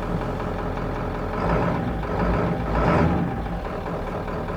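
Ford 7.3 Powerstroke turbo-diesel V8 running in a 1995 F350, swelling in level for a second or two after second gear is selected, then easing off. The truck does not move: the transmission gives no forward drive.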